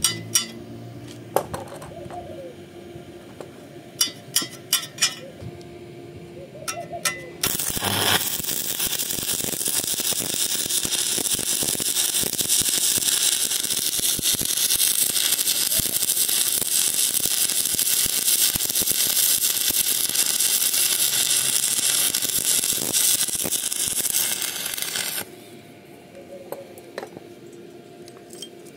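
Shielded metal arc (stick) welding: after several sharp metallic clicks, the electrode arc strikes about seven seconds in. It burns as a loud, steady, crackling hiss for roughly seventeen seconds, then cuts off abruptly near the end.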